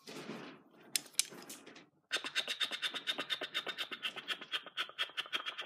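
A small plastic Thomas the Tank Engine toy train being handled and pushed along a tabletop. A short scrape and a couple of clicks, then from about two seconds in a fast, even clicking rattle at about nine clicks a second.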